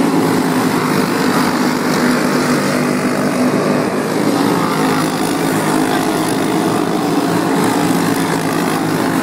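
A field of racing karts with single-cylinder Briggs & Stratton Animal four-stroke engines running at full throttle on a dirt oval, a steady, loud, continuous engine drone.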